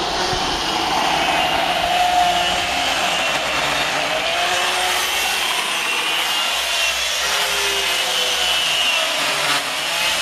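Two-stroke chainsaw running and cutting into a wooden log during carving, its engine pitch wavering up and down as the load changes.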